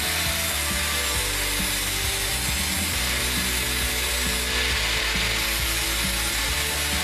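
Electric angle grinder running steadily under load, its disc grinding steel at a freshly welded shock mount.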